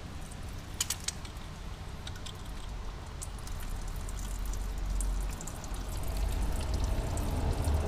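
Brake fluid running out of an opened bleeder screw under a pressure brake bleeder, a pouring trickle as the line is flushed with new fluid. A few sharp clicks about a second in, over a steady low hum.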